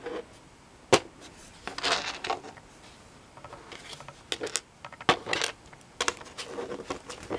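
Small plastic LEGO pieces being handled: a sharp click about a second in, then scattered clicks, light rattling and rustling.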